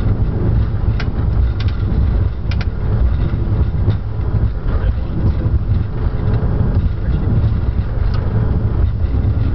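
Cockpit noise of a Challenger 605 business jet during its landing rollout: a steady, loud low rumble of the engines and the wheels on the runway. A few short clicks come through, about a second in, twice around two and a half seconds, and once near the end.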